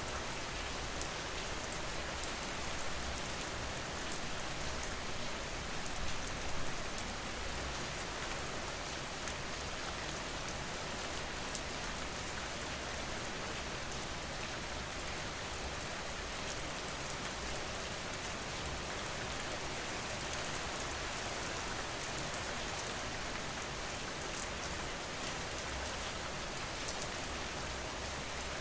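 Steady rain falling on a surface: an even hiss of rain with fine ticks of individual drops.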